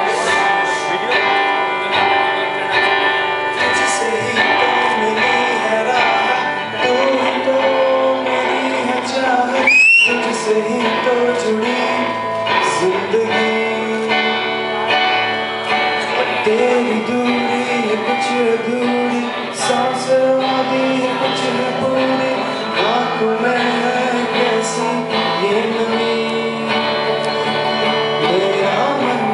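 Acoustic guitar playing with young male voices singing through microphones and a PA, the singing starting several seconds in. A short rising squeal comes about ten seconds in.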